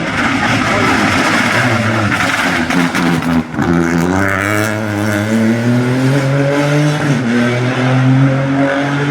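Peugeot 208 rally car engine accelerating hard, its pitch climbing through the gears. There is a brief lift about three and a half seconds in and an upshift near seven seconds.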